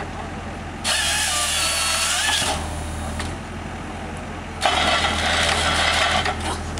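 GP-35A forestry processor head on a tracked excavator working a log, two loud harsh bursts about a second and a half long each, over the steady hum of the excavator's engine.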